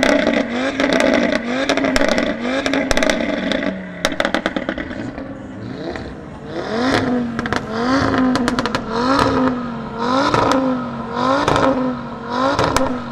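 Audi RS3's turbocharged five-cylinder engine revved in quick blips, about one every 0.7 seconds, with exhaust crackles and pops. After a short lull about four seconds in, a second run of five slower revs about a second apart, each climbing and falling back, with pops on each lift-off.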